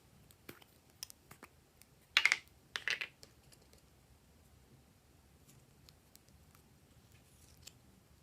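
Slime being pressed and worked by hand, giving scattered small clicks and two louder crackling pops about two and three seconds in.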